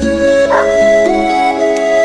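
Background music of long held notes that change pitch every second or so.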